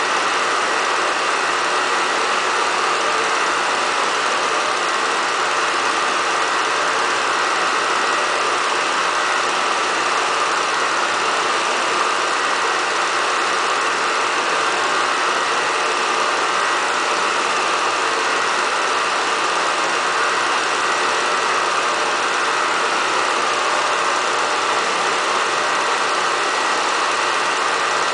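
A steady, unchanging mechanical hum and hiss with no distinct events.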